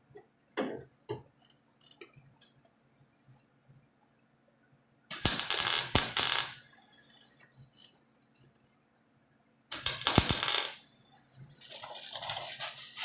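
Light metallic clinks and taps on sheet metal, then two short MIG stitch welds about five seconds apart, each a crackling burst lasting about a second and a half.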